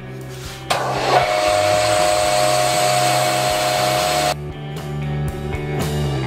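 Band saw cutting a small metal mounting plate, a loud rasping cut with a steady whine. It starts about a second in and stops abruptly after about three and a half seconds, over guitar music.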